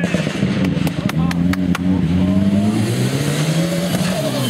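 Mitsubishi Lancer Evolution rally car engine running hard under load as the car passes on a gravel special stage, its note rising and falling. There are several sharp cracks about a second in.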